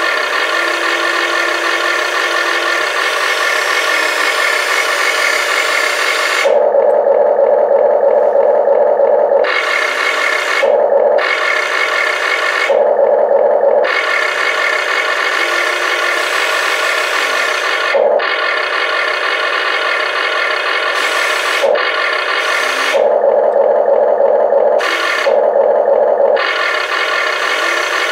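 Amewi 22501 1:14 metal RC excavator's electric motors whirring with a grating buzz as the boom, arm and bucket move. The sound comes in stretches that start, stop and change pitch as the control sticks are worked.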